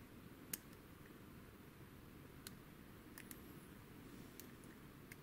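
Faint, sparse clicks of a lock pick working the pins inside a security-pinned WILKA pin-tumbler cylinder held under light tension, over a low steady hiss. The clearest click comes about half a second in, with a few fainter ones later.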